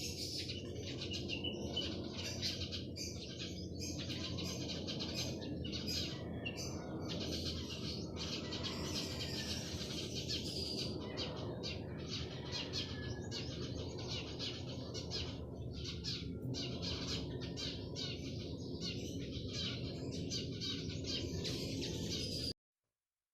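A chorus of many small birds chirping and twittering at once, rapid and overlapping, over a steady low background rumble. It cuts off suddenly near the end.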